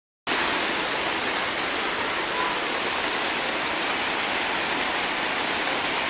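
Steady rush of falling water from the Düden Waterfall, an unbroken roar that cuts in abruptly right at the start.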